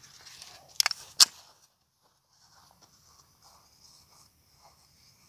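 Two shots from a Canik 9mm pistol, under half a second apart, the second the louder. No ring comes from the steel target, as the shots miss.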